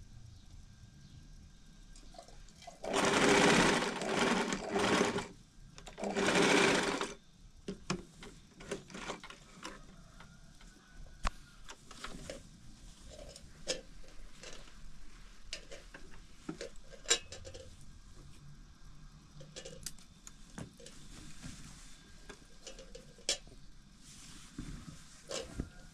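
Electric household sewing machine stitching in short bursts, between about three and seven seconds in. After that, fabric is handled and rustled, with scattered light clicks.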